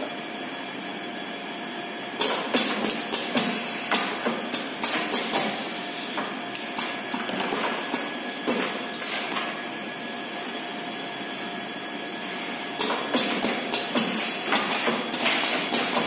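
Automatic thermocouple welding and crimping machine running: its mechanisms clack in quick clusters of sharp knocks, over a faint steady hum. The clacking eases off for several seconds in the middle, then picks up again near the end.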